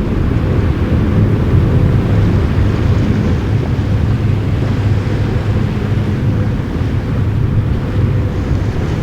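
Steady low drone of a ship's engine, with wind buffeting the microphone.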